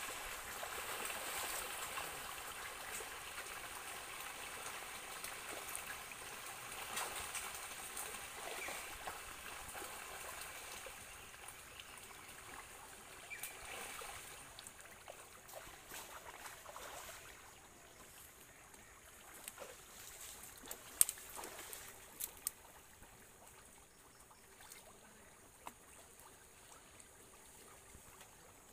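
Splashing and churning water from a shoal of pangasius catfish feeding at the pond surface, loudest at first and dying away as the frenzy thins. A few sharp knocks come about two-thirds of the way through.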